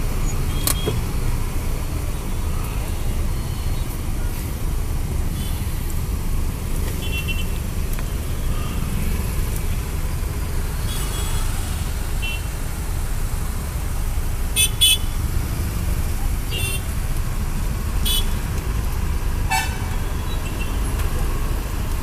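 City traffic heard from inside a car waiting at a junction: a steady low engine and road rumble, with short car horn toots now and then, several of them in the second half.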